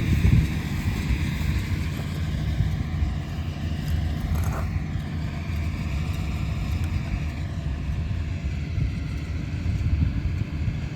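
Farm tractor engines running steadily: a low rumble with a faint wavering whine above it.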